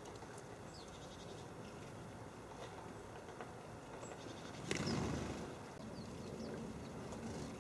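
Small garden birds giving faint, short, high chirps now and then, over steady outdoor background noise. A brief rush of noise a little under five seconds in is the loudest moment.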